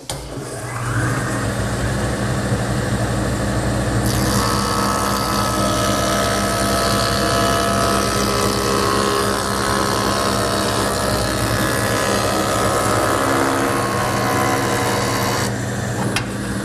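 An electric jointer's motor starting up with a rising whine, then running steadily. From about four seconds in, the cutterhead shaves the edge of a walnut board held against the fence, adding a loud hissing cut that stops abruptly about a second before the end.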